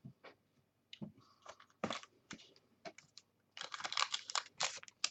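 Light handling noises of trading cards and their plastic holders: scattered soft clicks, then a denser crackling rustle for about a second, starting about three and a half seconds in.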